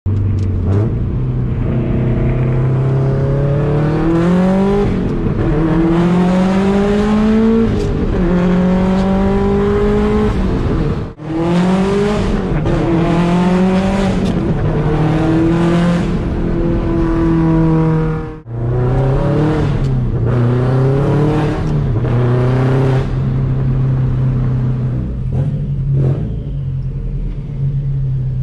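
Straight-piped 2004 Subaru WRX STI's turbocharged flat-four, heard from inside the cabin, pulling up through the revs again and again, its pitch climbing on each pull and dropping back. Twice the sound breaks off abruptly for a moment. Near the end it settles into a steady, lower drone.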